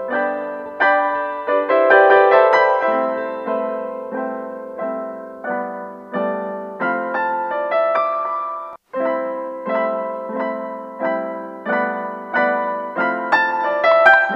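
Background piano music, single notes and chords struck at a steady, unhurried pace, each fading before the next. It drops out for a moment about nine seconds in.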